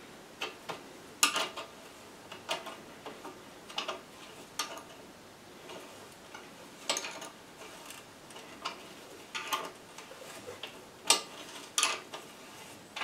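Irregular metallic clicks and taps, about one a second and some louder than others, from a 10 mm spanner on a scooter's exhaust mounting bolt as it is turned and repositioned stroke by stroke.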